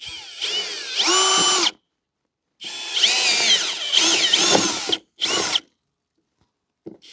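Cordless drill spinning a 1-inch spade bit to bore a hole up through a soffit. It runs in three bursts of one to two seconds, with a short blip near the end, and its motor whine rises and falls in pitch as the speed changes.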